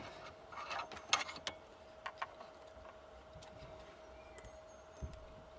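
Faint scattered clicks and scrapes of a long-bladed screwdriver levering a Mini Cooper's coil-on-plug ignition coil out of its spark plug well, with a dull knock near the end, over a faint steady hum.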